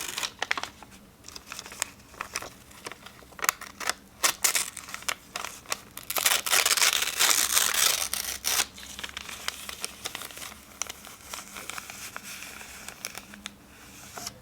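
Sheets of paper being torn and crumpled by hand: scattered crackles, then one long rip around the middle, followed by softer crinkling and rustling.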